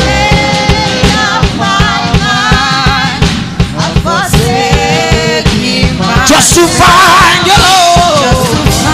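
Live worship band playing a loud, steady-beat song with drums while voices sing long, wavering held notes.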